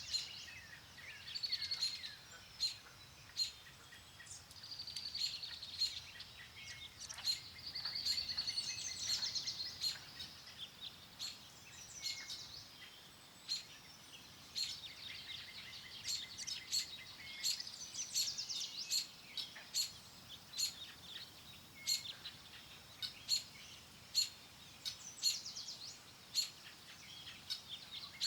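Songbirds singing and chirping in a steady chorus: several overlapping trills and many short, sharp chirps, over a faint background of wind.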